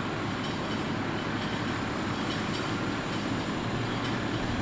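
Fire trucks' diesel engines running as the trucks roll slowly up the street, a steady low rumble.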